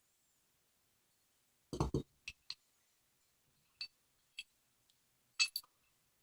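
Metal clicks and clinks from handling a large steel padlock and small hand tools, with a heavier knock about two seconds in and a few short ringing clinks after it.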